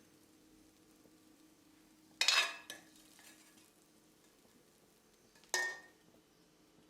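A metal serving spoon knocks and scrapes against cookware twice while curry is dished out: a louder clank with a brief ring about two seconds in, and a shorter one about three seconds later.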